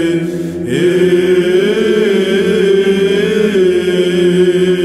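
Byzantine chant: a chanter drawing out a melismatic phrase, the close of the prokeimenon before the Gospel. The melody wavers up and down over a steady held drone (the ison).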